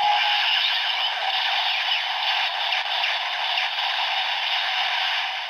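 Electronic finishing-move sound effects from a Kamen Rider DX Hyper Muteki toy, playing through its small speaker: a dense whooshing, crackling noise with falling sweeps, fading out near the end.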